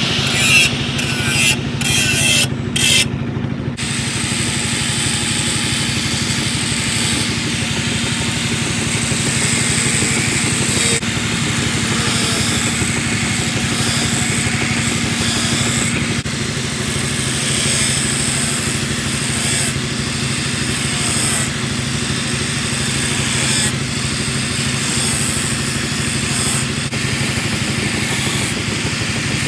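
Electric angle grinder running steadily while it grinds the edge of a steel knife blade, a constant motor hum under a high grinding hiss. A few abrupt breaks come in the first few seconds.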